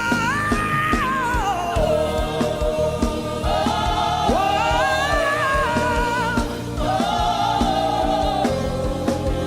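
Gospel worship music: voices singing long held, sliding notes over a band with a steady bass and drum beat.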